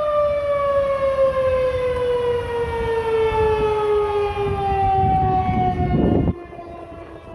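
Federal Signal 2001-SRN outdoor warning siren winding down at the end of its test, its tone falling steadily in pitch. A low rumbling noise underneath cuts off abruptly about six seconds in.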